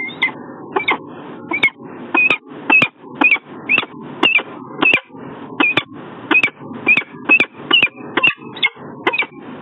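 Peregrine falcon calling over and over, a string of short, sharp, high calls at about two a second, over a steady low background rumble.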